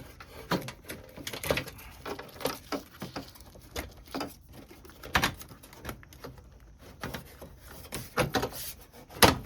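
Irregular knocks, clicks and scraping of plastic and metal parts being shoved and worked into place while a car's radiator is being fitted. The sharpest knocks come about five seconds in and near the end.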